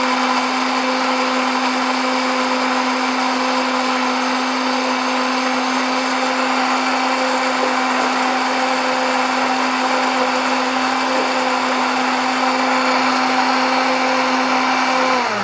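Electric blender running steadily at a constant speed, pureeing grapes, carrots, ginger and orange with water into a smooth juice. Right at the end the motor is switched off and its pitch begins to fall.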